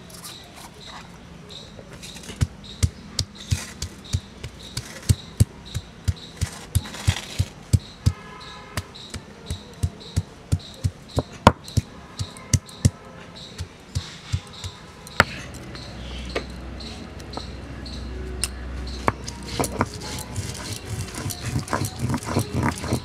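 Cylindrical grinding stone knocking down on a flat stone slab, about two strokes a second, crushing ginger and garlic. From about fifteen seconds in it is rolled back and forth over the slab instead, a steady low grinding with quicker ticks that grows louder near the end.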